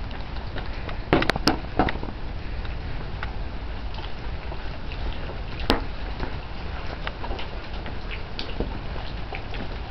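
Outdoor ambience in a wet snowfall, heard through a handheld camera: a steady low rumble with scattered small ticks and drips. A few sharp knocks come a little over a second in, near two seconds, and just before six seconds.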